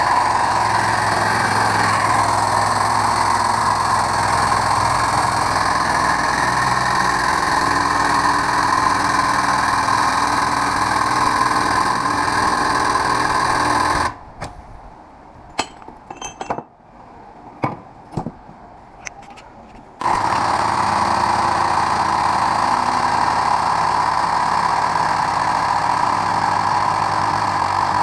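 Angle grinder with a thin cut-off wheel cutting through the steel case of a fluorescent light ballast, running steadily. About halfway through it stops for several seconds, leaving a few sharp clicks and knocks. Then it cuts steadily again.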